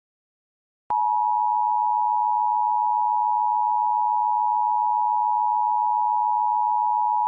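Emergency Alert System attention signal: a steady electronic alarm tone near 1 kHz that starts about a second in and holds at an even level.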